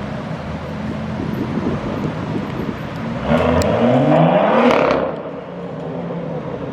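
BMW M2's turbocharged straight-six engine accelerating hard, its exhaust note rising in pitch for about two seconds around halfway through, then dropping away as the car pulls off.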